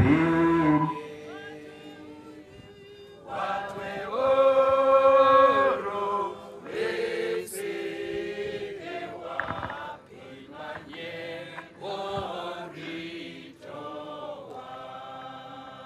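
Unaccompanied hymn singing: voices chanting in long held notes and phrases, loudest from about four to six seconds in.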